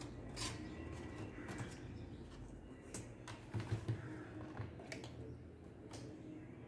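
Irregular light clicks and taps from hands working on a laptop, with a few louder ones near the middle, over a low steady hum.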